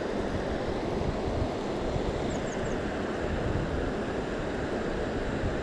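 Steady rush of a fast river running over rocks, with wind buffeting the microphone. A quick run of three short high chirps about two seconds in.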